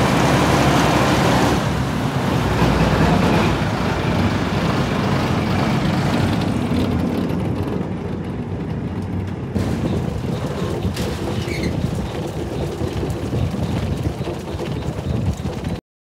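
Heavy vehicle engine idling steadily with a low, even rumble, heard close up; the sound cuts off abruptly just before the end.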